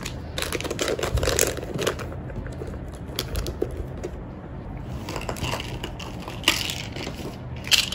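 Handling noise as a packet of wet wipes and a small bottle of hand gel are pushed into a small handbag: crinkling of the packet and rustling against the bag, with light clicks and taps.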